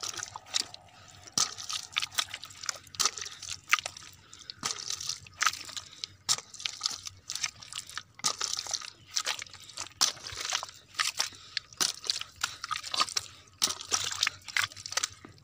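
A kodal (short-handled digging hoe) chopping and scraping into caked, cracked mud, making an irregular run of sharp crunches several times a second.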